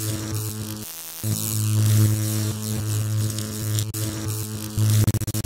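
Electric buzz sound effect: a steady low mains-like hum with crackle over it. It drops out briefly about a second in and stutters on and off near the end.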